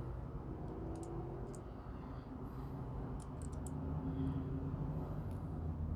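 A few short, sharp metal clicks from a SOG PowerAccess multi-tool being handled as its fold-out tools are worked, over a steady low hum.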